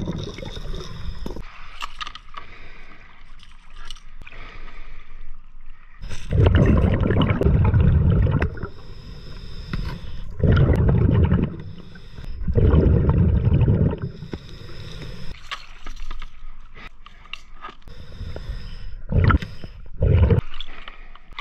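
A scuba diver breathing through a regulator, heard underwater: exhaled bubbles gurgle out in loud bursts every few seconds, with a quieter hiss of inhaling between them.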